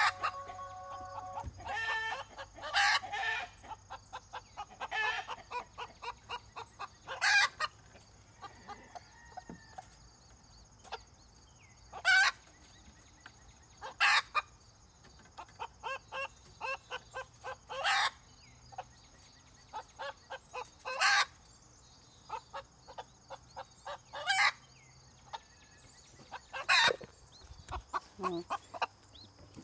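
Broody mother hen clucking in quick runs, broken by loud squawks every few seconds: a hen upset at being handled and moved to a new cage.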